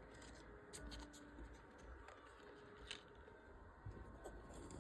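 Near silence, with a few faint taps and rustles from small items being handled.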